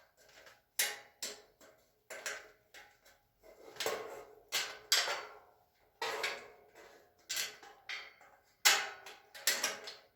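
Metal parts of a steel shelving unit clinking and knocking as brackets and screws are handled and fitted by hand: about a dozen irregular sharp clinks with a short ring, the loudest near the end.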